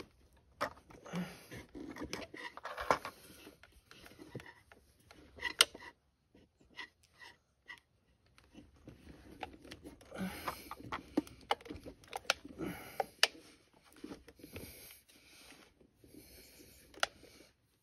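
Steel tire spoons levering a Honda Monkey 125's rear tire bead over the rim: scattered sharp clicks and knocks of metal against the rim and plastic rim protectors, with stretches of rubber bead rubbing and scraping on the rim.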